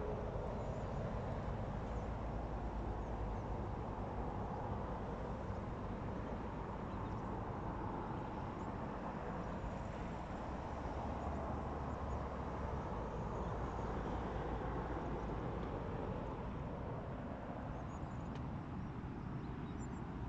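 Steady rumble of road traffic passing on a nearby road.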